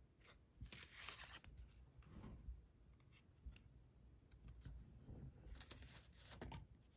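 Faint tearing and rustling of Yu-Gi-Oh booster pack wrappers and trading cards being handled: two short bursts, about a second in and again near the end, with light ticks and taps between.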